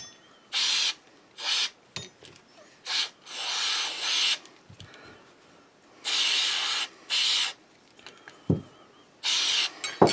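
Aerosol can of Rem Oil light lubricant spraying in about seven short bursts of hiss as shotgun parts are lubed. A few sharp knocks come between the bursts, the loudest about three-quarters of the way through.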